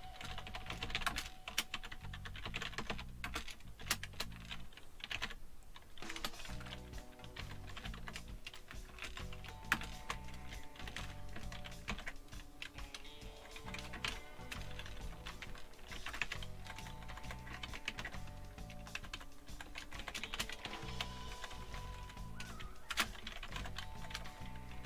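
Typing on a computer keyboard in quick, irregular runs of key clicks, over quiet background music with a repeating low beat and held notes.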